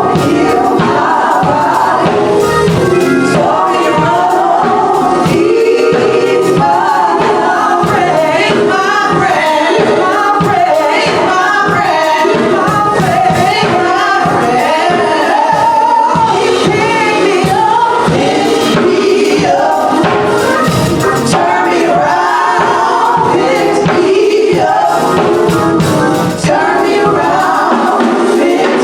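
Gospel choir singing with band accompaniment.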